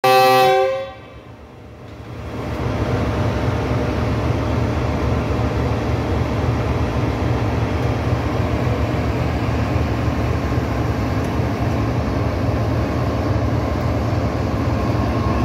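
GEU-40 diesel-electric locomotive departing: a brief loud horn blast at the very start, then after about two seconds the engine's steady low drone builds up and holds as the locomotive rolls slowly past.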